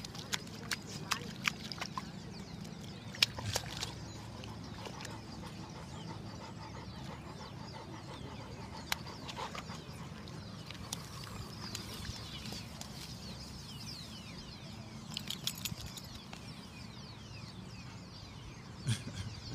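Labrador puppy pawing and splashing in a shallow mud puddle: scattered wet slaps and splats, most of them in the first four seconds and another short cluster near the end. Faint bird chirps in the background around the middle.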